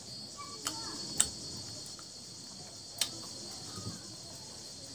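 Close-miked eating: chewing of rice and curry with a few sharp wet mouth smacks, the loudest about a second in, over a steady high-pitched background buzz.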